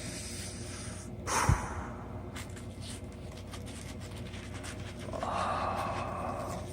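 A paper poster being unrolled and handled: a short rustle with a knock about one and a half seconds in, light crinkling, then a soft sliding hiss for over a second near the end.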